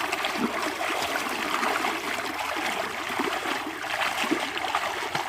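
Shallow water splashing and sloshing continuously, a dense, busy rush of many small splashes, as in wading and trap fishing in a muddy pond.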